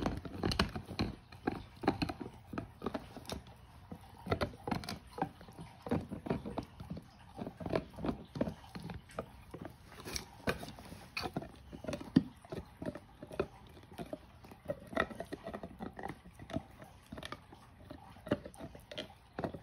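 Doberman gnawing a hard wishbone-shaped chew toy held close to the microphone: teeth clicking and crunching on it in an irregular run, several times a second.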